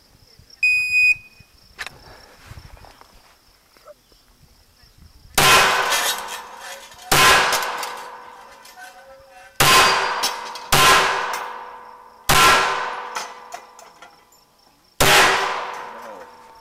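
A shot timer's short electronic start beep, then six shots from a Smith & Wesson M&P 9mm pistol, one to two and a half seconds apart. Each shot is followed by a long, ringing clang that dies away over a second or two, typical of bullets hitting steel targets.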